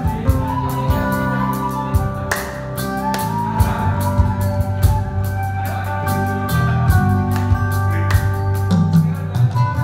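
Live band music: a Gayo suling (bamboo flute) plays long held notes of a melody over acoustic and electric guitars, with drum strokes from an electronic drum kit.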